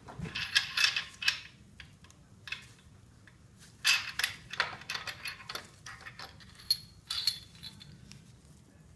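Metal clinks and rattles of a steel main bearing cap being worked loose and lifted off the crankshaft of a 5.7L HEMI engine block, in two bursts: one about a second in and a longer one from about four to seven seconds.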